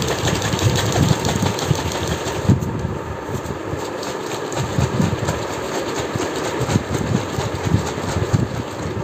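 Liquid sloshing in a capped plastic bottle shaken hard in a steady rhythm: blue motorcycle coolant being mixed with distilled water.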